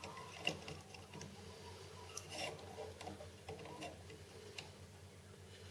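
A few scattered small clicks and taps of metal tools and the workpiece being handled, over a faint steady hum.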